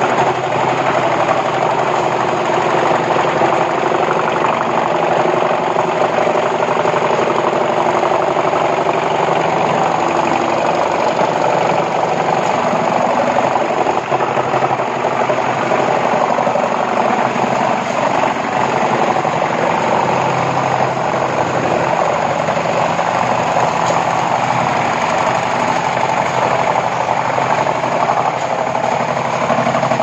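Pezzolato PTH 40.70 drum wood chipper, driven off the tractor's PTO, running under load as it chips wooden slabs and boards, with the tractor engine pulling steadily underneath. A loud, continuous din with no pauses.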